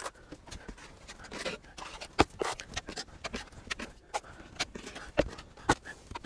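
Drywall taping knife clicking and scraping against a metal mud pan and the wall as joint compound is loaded and spread: a scatter of sharp irregular clicks with a few short scrapes.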